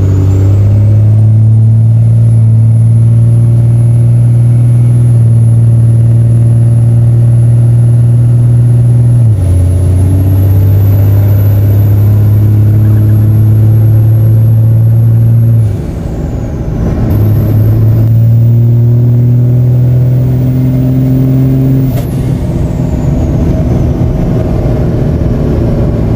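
12-valve 5.9 Cummins turbo diesel in a second-generation Dodge Ram pulling hard under load, with a high turbo whistle that climbs in pitch as it spools. The engine note steps down about nine seconds in, and the whistle falls away at transmission shifts around sixteen and twenty-two seconds in.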